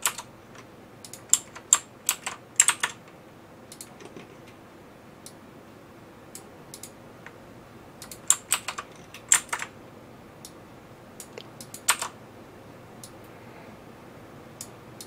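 Computer keyboard keys struck in short irregular clusters of a few strokes at a time, with a quieter stretch from about three to eight seconds in.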